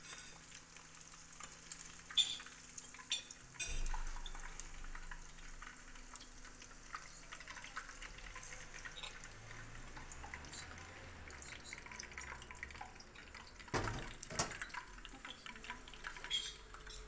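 Meatballs frying in hot oil, a steady fine crackling sizzle. Now and then a metal slotted spoon clinks and knocks against the pot and plate as the meatballs are scooped out. The sharpest knocks come about two and four seconds in, and again late on.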